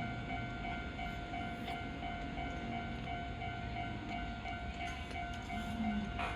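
Japanese level crossing warning bell ringing its steady, evenly repeating ding over the low rumble of a passing train.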